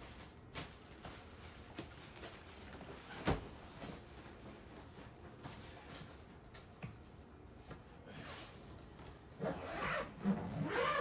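Rubbing and rustling as a bag and its contents are handled, with one sharp knock about three seconds in.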